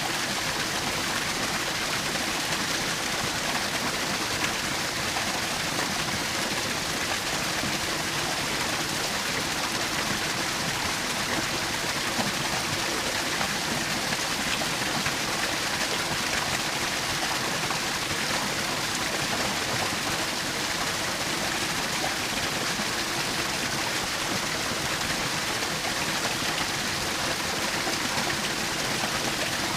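Small waterfall splashing and rushing steadily, an unbroken even wash of falling water.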